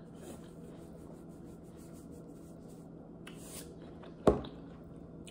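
Salt shaken from a Morton salt canister onto a watermelon slice: a quick run of faint, rhythmic shakes with a grainy hiss, then about four seconds in a single sharp knock, the loudest sound.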